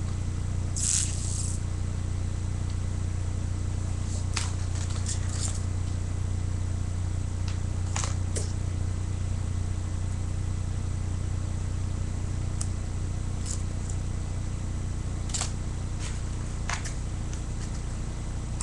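Steady low electrical hum, with a few faint rustles and clicks scattered through it.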